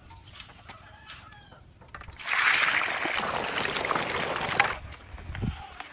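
Chicken calling: a loud, harsh call starting about two seconds in and lasting about two and a half seconds, after fainter chirps.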